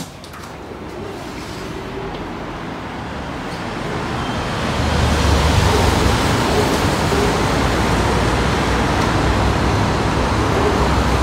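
City street traffic noise coming in through an opened window, swelling over the first few seconds and then holding steady, with a low rumble of wind on the microphone from about halfway.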